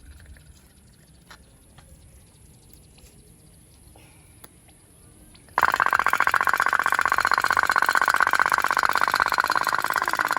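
Toy pop-pop boat (kapal otok-otok) starting up: after a quiet stretch, its candle-heated boiler kicks in about halfway through with a loud, rapid, even putt-putt pulsing that keeps going.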